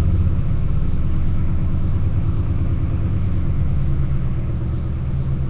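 A motor running steadily with a low rumbling hum, easing slightly in loudness toward the end.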